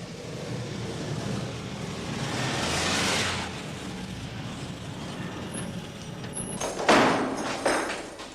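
Road traffic: a vehicle passes, swelling and fading about three seconds in, then a sudden loud sound about seven seconds in that dies away over about a second.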